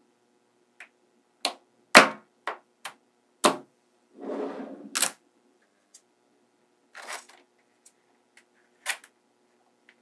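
Small magnetic balls clicking and snapping together as strips of them are handled and set in place: a string of sharp, separate clicks, with a short rattle a little before halfway.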